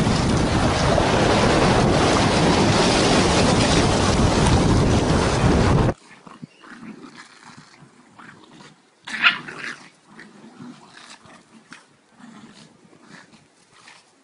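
Wind buffeting the microphone over beach surf, a loud steady rush that cuts off abruptly about six seconds in. Then two pugs playing, much quieter: a short sharp yelp about nine seconds in and soft low grunting sounds.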